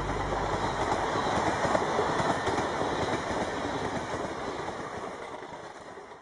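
A train running on its rails: a steady rushing noise that fades away over the last few seconds.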